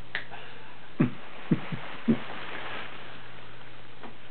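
Four short, dull thumps in quick succession starting about a second in, over a steady low hum.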